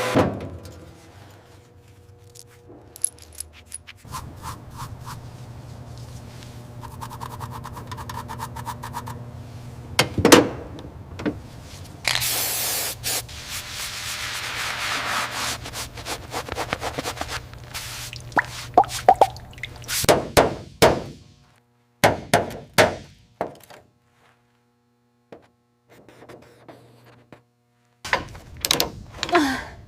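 Workshop work sounds: a steady low hum under scattered knocks, clanks and clicks, with a few seconds of loud rushing, scraping noise about twelve seconds in and a cluster of sharp thuds and clicks near the end.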